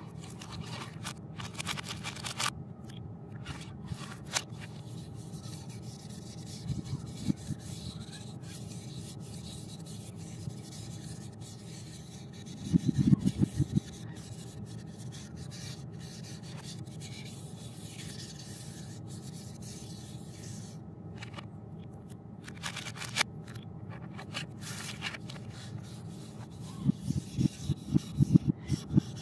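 Sharpie felt-tip marker drawing on white cardboard: a steady rubbing, scraping sound of the tip dragged across the board, with clusters of quick scratchy strokes about halfway through and again near the end.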